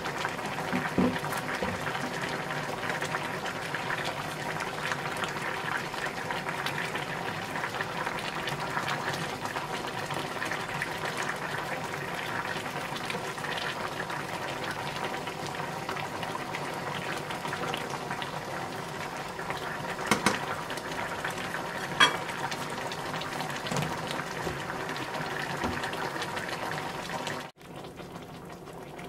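Braised mackerel and kimchi stew bubbling at a steady boil in a stainless steel pot, with a wooden spoon knocking against the pot a few times. Near the end the sound drops off abruptly and the bubbling goes on more quietly.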